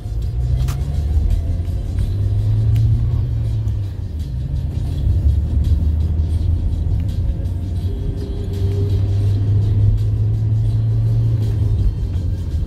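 Steady low rumble of a car's engine and tyres on a patched asphalt road, heard from inside the cabin while driving.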